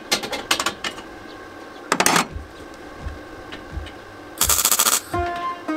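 Wire-feed welder arcing on a steel tube frame in short bursts: a sputtering cluster at the start, one about two seconds in and a longer one near the end. Music comes in just after the last burst.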